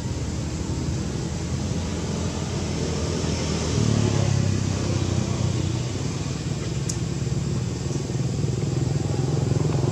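Motorcycle engine running at a steady low pitch, growing louder about four seconds in.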